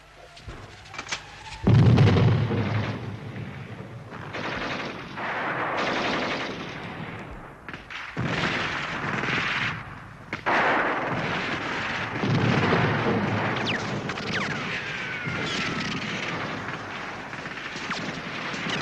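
Battle-scene gunfire from rifles and submachine guns, with a loud bang about two seconds in followed by repeated bursts of firing. Several falling whines sound near the end.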